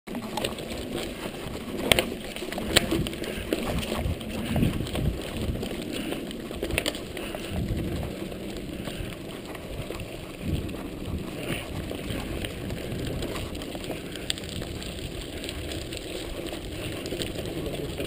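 Mountain bike riding over a rocky gravel track: a continuous low rumble and crunch of tyres on loose stones with rattling from the bike, broken by a few sharp knocks as the wheels strike rocks, the loudest about two and three seconds in.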